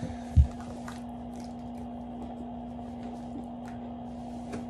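One low thump on the tabletop about half a second in, then faint scrapes and clicks as a scissor blade slits the packing tape on a cardboard box, over a steady low hum.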